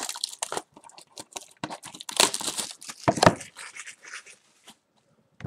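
Plastic shrink wrap being torn and crinkled off a sealed trading-card hobby box by hand, in irregular crackling rustles that stop near the end.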